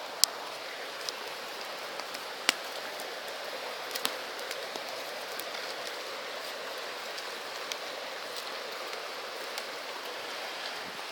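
Small campfire of twigs and bark crackling, with scattered sharp pops, the loudest just after the start and about two and a half seconds in, over the steady rush of a creek.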